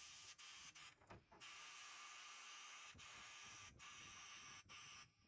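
Abrasive blast-cabinet gun hissing steadily as it blasts rust off a grill grate, cutting out briefly several times.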